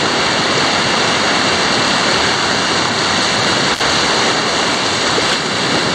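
Class III whitewater rapid rushing over and around rocks: a loud, steady wash of white water, heard close up.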